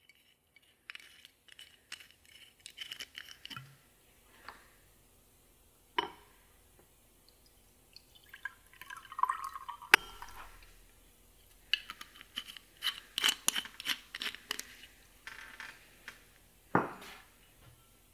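Liquor poured from a glass bottle into a glass tumbler, with clinks and taps of glass on glass around it; the loudest is a sharp clink about halfway through. Runs of quick small clicks follow.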